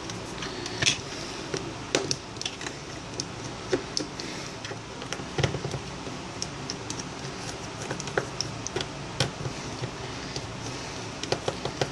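Scattered light clicks and taps of hands handling a Samsung Galaxy Note's plastic phone body, over a faint steady room hum.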